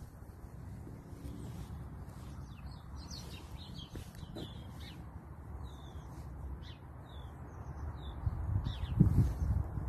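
Small birds chirping in short scattered calls over a steady low rumble of wind on the microphone, with louder low thumps and rumbling near the end.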